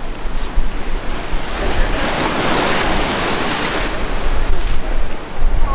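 Surf churning and washing around the jetty's concrete pilings, swelling louder for about two seconds in the middle, with wind buffeting the microphone.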